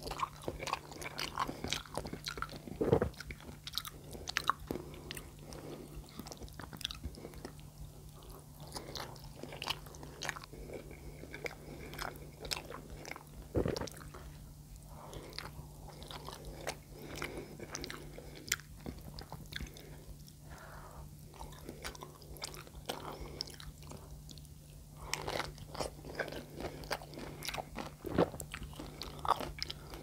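Close-miked chewing and biting of meat-and-rice stuffed green peppers, with wet mouth clicks and smacks throughout and a few louder moments. A steady low hum runs underneath.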